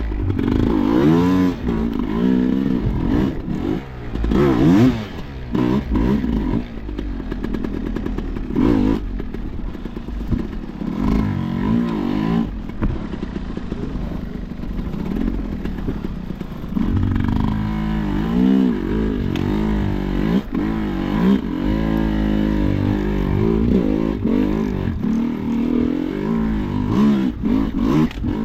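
Hard enduro motorcycle engine revving up and down over and over under load, with scattered knocks and clatter.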